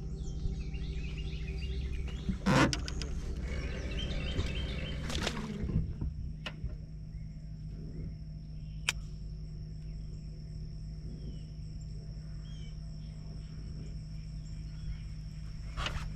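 Birds chirping in short repeated phrases over a low steady hum, which stops about six seconds in. A sharp rustling knock about two and a half seconds in and another about five seconds in; afterwards a thin, steady high tone remains.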